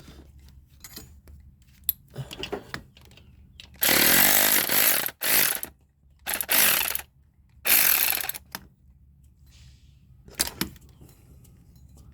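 Power tool run in short bursts, about a second each, four of them in quick succession with a brief one after, driving a starter mounting bolt whose threads the mechanic fears are cross-threaded.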